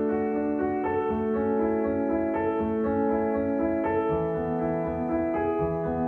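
Slow instrumental background music with held, overlapping notes that change every second or so.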